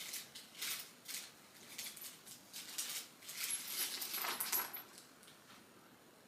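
Small hard items being handled: a run of light clicks and rattles, busiest about three to four seconds in, then stopping near the end.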